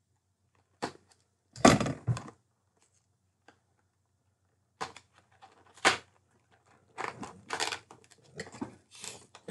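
Product packaging of a small shaver box being pried and torn open by hand: scattered rustles and tearing noises, loudest about two seconds in, with a run of short crackles near the end.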